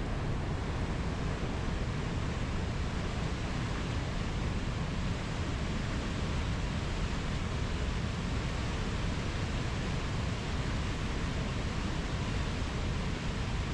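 River water rushing in a steady, even noise without pause.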